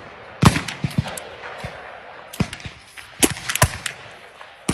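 Black-powder muzzleloading muskets firing along a skirmish line: a string of shots at uneven intervals, some close together, the loudest about half a second in.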